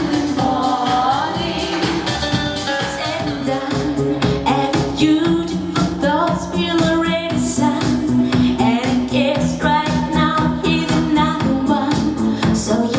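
Pop song with a female lead vocal over a band with a steady drum beat.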